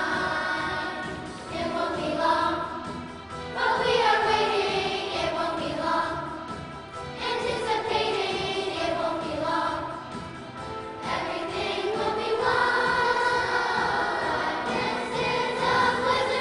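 A children's choir singing a holiday song, with long held notes that rise and fall in pitch.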